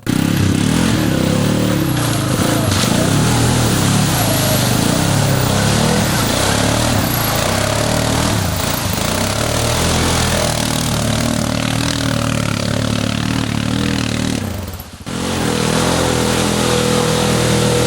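ATV engine running under varying throttle as it is ridden, its pitch rising and falling. The sound drops out for a moment about fifteen seconds in, then the engine carries on.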